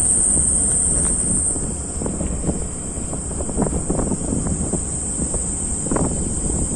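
Open-top safari jeep driving along a forest road: wind buffeting the microphone over a low engine and tyre rumble, with scattered knocks and rattles from the vehicle. A steady high-pitched insect drone runs through it.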